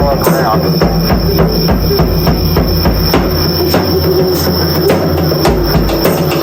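Drum solo: percussion strikes at a steady pace of about two to three a second, over a sustained low backing.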